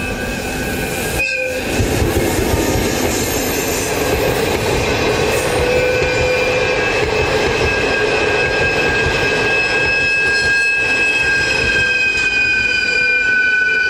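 Passenger train passing close by: an EF65 electric locomotive hauling old-type passenger coaches, a heavy rolling rumble with wheels clattering over the rail joints. A steady high-pitched squeal from the wheels runs through it and grows stronger near the end.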